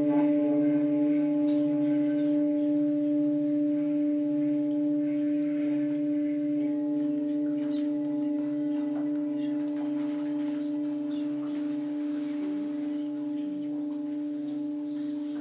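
Large hammered singing bowl with a person standing inside it, ringing on after a strike: one deep steady hum with higher overtones, wavering slowly and fading gradually.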